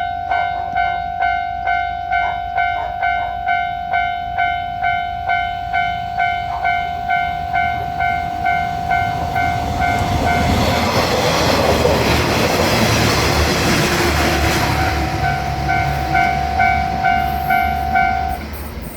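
Japanese level-crossing warning bell dinging about twice a second. About halfway through, a diesel railcar passes for roughly five seconds, its rumble and wheel noise rising over the bell. The bell then carries on and stops shortly before the end.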